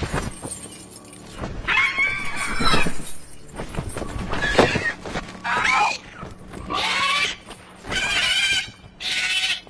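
A young dragon screeching: a film sound effect of about five short cries in a row, starting about two seconds in. There is a sharp crack between the first and second cries.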